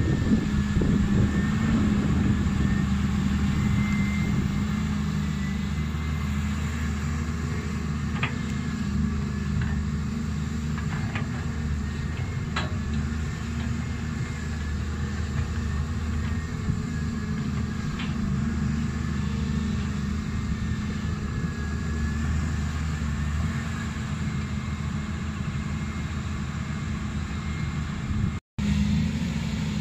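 Volvo crawler excavator's diesel engine running steadily as the machine swings and digs, with a few faint knocks. The sound breaks off for an instant near the end.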